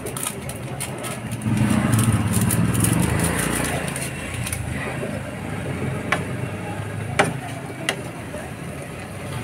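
Noodles simmering in bubbling broth in a pan, with a steady hiss, then a wooden spatula stirring them and knocking sharply against the pan three times near the end. A louder low rumble swells about a second and a half in and fades over the next couple of seconds.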